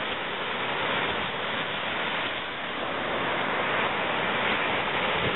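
Ocean surf breaking and washing up over rocks and sand at the water's edge: a steady rushing noise that swells and eases gently with the waves.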